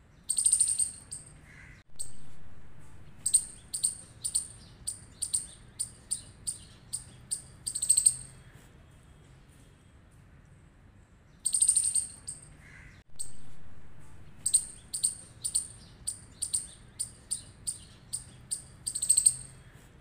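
Squirrel giving loud, high-pitched chirping calls: one long chirp, then a run of about a dozen short chips at roughly two to three a second ending on a longer chirp. The same sequence sounds twice.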